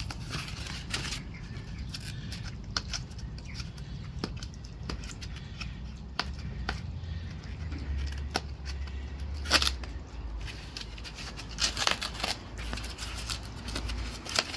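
Packaging material being pulled and torn off a new bike: rustling and crinkling with scattered sharp clicks and snaps, loudest about two-thirds of the way through.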